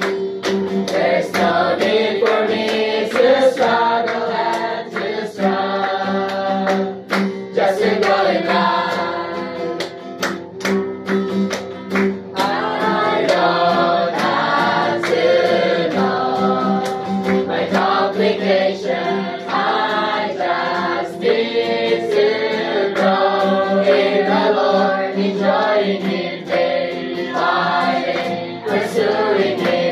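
A mixed group of young men and women singing a song together, accompanied by a strummed acoustic guitar.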